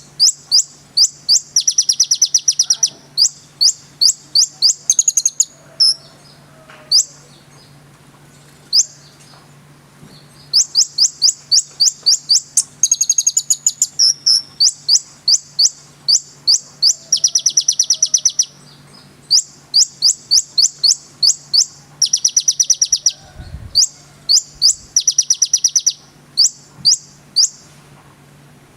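Konin bird singing: rapid series of sharp, high-pitched chirping notes in phrases of a second or two, broken by short pauses, over a faint steady low hum.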